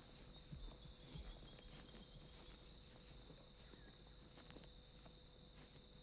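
Faint steady chorus of crickets chirring, with a few soft hoofbeats from a walking horse in the first second or so, fading as it moves off.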